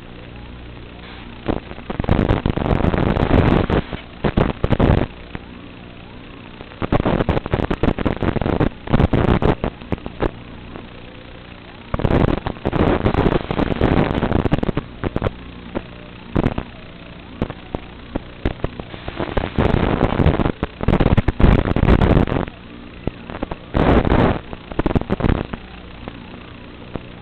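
Brushless motors and propellers of a ZMR-x210 FPV racing quadcopter in flight: a steady multi-tone hum, broken about ten times by loud, rough surges of one to three seconds as the throttle is punched.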